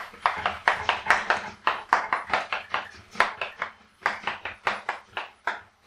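Chalk on a blackboard: a quick, irregular run of short taps and scratches as characters are written stroke by stroke, with a brief pause a little past halfway.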